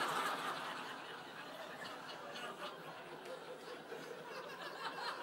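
Theatre audience laughing at a punchline, loudest at first and dying down to scattered chuckles.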